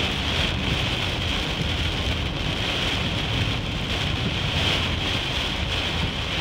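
Heavy rain hitting a car's windshield and body, heard from inside the car as a steady dense hiss with a low rumble underneath.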